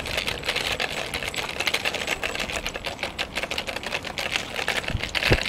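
Dog wheelchair's wheels rolling briskly over coarse asphalt, with a fast, irregular clicking rattle.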